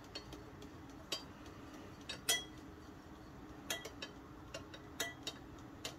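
Spoon clinking against the side of a glass measuring cup while stirring hot water, in irregular taps with a short ring, the loudest a little past two seconds in.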